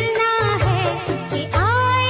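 Hindi film song music: a wavering, ornamented melody over a steady low bass note. About a second and a half in, a new note glides up and is held.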